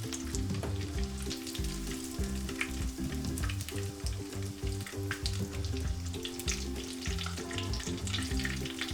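Breaded shrimp-and-potato nuggets sizzling and crackling in shallow hot oil in a frying pan, an irregular spatter of crackles throughout.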